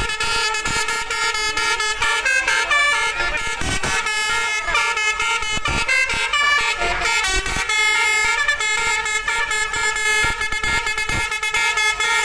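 Indonesian 'basuri' telolet bus horn, a multi-trumpet air horn, playing a rapid run of short notes that step from pitch to pitch, punctuated by many quick clicks.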